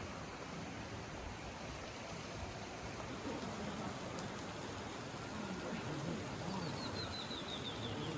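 Steady rushing and splashing of water falling from the rock of a natural bridge. Near the end a bird sings a quick run of short, falling notes.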